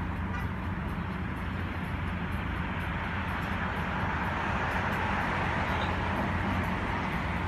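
Steady urban traffic and engine noise: a low hum under a broad rushing hiss that grows slightly louder around the middle and later part.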